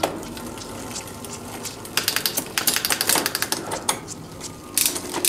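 Bicycle rear hub's freewheel ratcheting while the rear wheel spins in a workstand: a quick, dense run of ticks that starts about two seconds in and stops shortly before the end.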